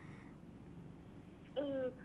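A pause in a conversation with only faint steady hum and hiss, then a woman starts speaking about one and a half seconds in.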